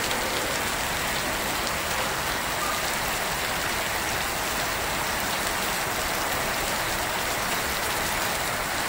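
Heavy rain falling steadily and hard.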